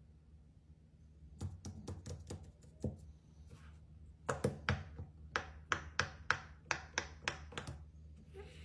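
Silicone pop-it fidget toy having its bubbles pressed in one after another by a fingertip: a run of about seven soft pops, a short pause, then about a dozen more at roughly three a second.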